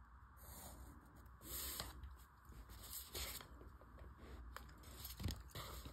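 Faint handling noises: a few brief scrapes and rustles as a wooden ruler and pencil are moved over a notebook page.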